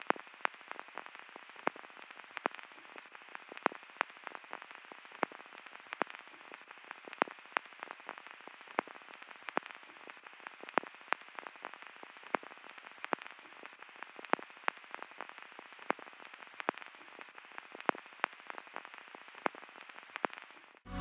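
Faint, irregular clicks and crackles, roughly two or three a second and varying in strength, over a light steady hiss.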